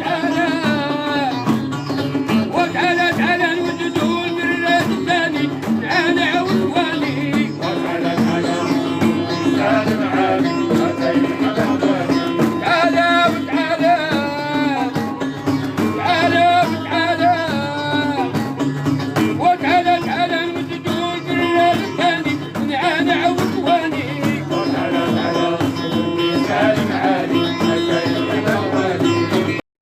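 Music: a voice singing gliding, ornamented lines over plucked-string accompaniment and a steady beat.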